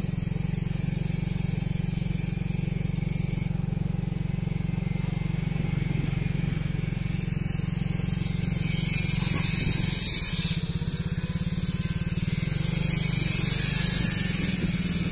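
Motorcycle engine running steadily at low pitch while riding along a dirt road. Twice, about halfway through and near the end, wind rushes loudly over the microphone.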